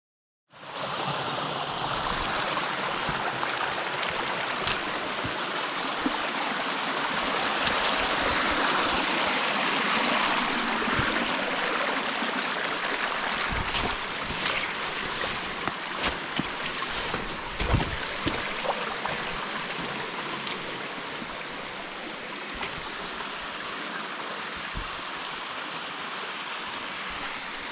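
Waterfall on a brook rushing steadily, with a few low thumps mixed in. It is loudest about a third of the way in, then slowly grows quieter.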